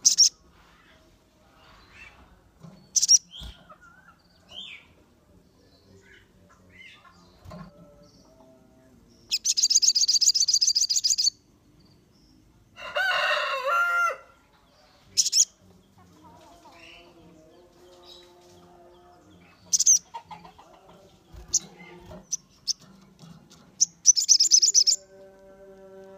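Caged songbirds, among them a sogon sunbird, calling in short high-pitched chirps broken by gaps, with two rapid trills lasting one to two seconds each, played as a lure song to excite another sogon into singing. About halfway through comes a lower, harsher call lasting over a second.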